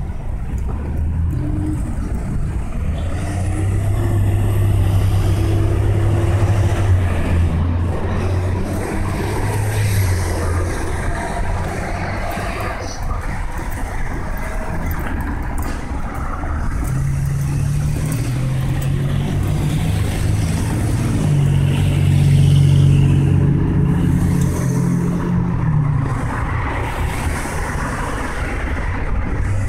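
Street traffic: the running of passing cars and heavier vehicles over steady road noise. A low engine drone swells twice and holds for several seconds each time.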